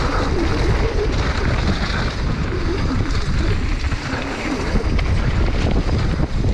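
Wind buffeting the microphone of a mountain bike's action camera at speed, over the steady rush of knobby tyres on loose dirt and the bike rattling as it descends the trail.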